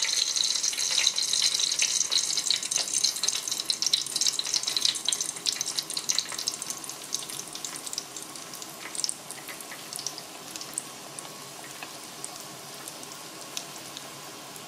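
Breaded oysters deep-frying in hot oil: a loud crackling sizzle as they go in, easing over the first several seconds into a steadier, quieter bubbling hiss with occasional pops.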